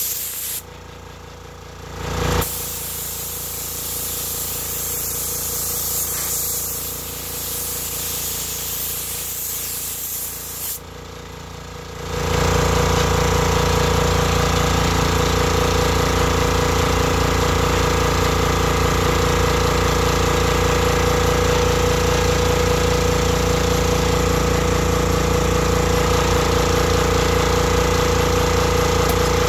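Compressed air hissing out of the hose of a Campbell Hausfeld 20-gallon, 2 HP air compressor, with two short breaks in the flow. About twelve seconds in, the sound gives way to the compressor's motor and pump running, louder and steady, as it charges the tank back up.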